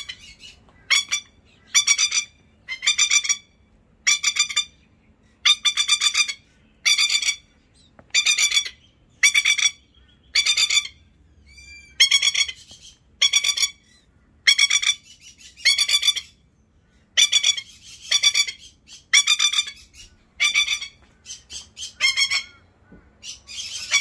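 Masked lapwing (spur-winged plover) giving loud, harsh, chattering calls, each under a second long, about one a second. These are alarm calls, typical of an adult lapwing defending its chick from someone close by.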